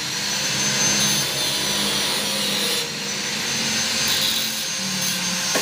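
Handheld electric angle grinder with a cut-off disc cutting through iron, the motor whining steadily as the disc grinds into the metal. The sound drops a little about three seconds in, then carries on.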